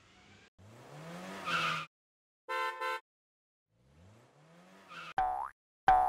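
Cartoon vehicle sound effects for a logo ident: an engine revving up into a tyre screech, two short horn honks, another rev, then two springy boings near the end.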